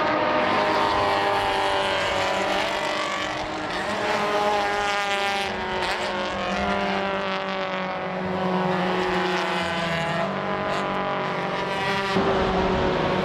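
Several Toyota GT86 race cars' flat-four engines passing in a group, their engine notes overlapping, with the pitch rising as they accelerate out of the corner.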